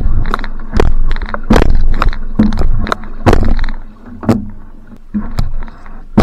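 Outrigger canoe (va'a) paddle strokes: the blade catches and pulls through the water with a splash about every three-quarters of a second, over a steady rumble of water and wind. The strokes ease off and the sound drops about four seconds in.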